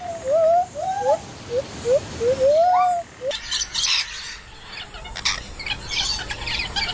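A bird calling in a run of short whistled notes, each one rising then falling, about two a second. At about three seconds in the calls stop and a scratchy, crackling noise takes over.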